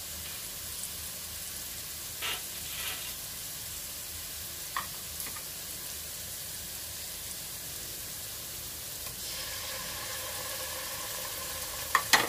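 Diced carrots and green capsicum sizzling in oil in a non-stick wok, a steady hiss with a few light clicks. A steady hum joins about nine seconds in.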